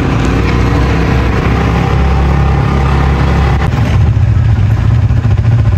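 A motor vehicle's engine running steadily: a loud, even low hum under a rushing noise.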